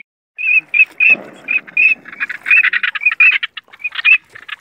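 Many short, high chirping calls repeating rapidly and overlapping, with a brief rustle about a second in.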